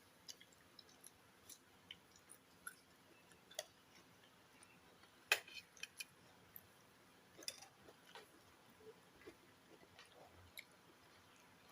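Quiet eating at a meal: faint scattered clicks and small knocks of chewing and utensils, the loudest about five seconds in.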